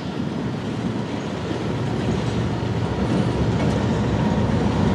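Freight train of boxcars rolling past, a steady rumble and rattle of steel wheels on the rails, slowly getting louder.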